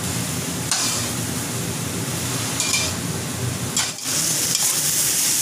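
Sliced taro stems stir-frying in a wok, sizzling with a spatula scraping through them every couple of seconds over a steady low hum. The sizzle grows louder and brighter about four seconds in.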